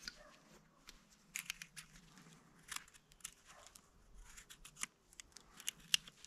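Small whittling knife shaving a wooden peg by hand: a series of short, irregular scraping cuts of the blade through the wood.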